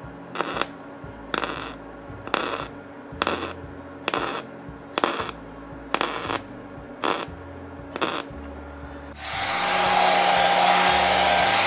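MIG welder laying a string of short welds on steel, about nine brief bursts of arc roughly a second apart. About nine seconds in, an angle grinder starts and runs steadily, grinding the steel.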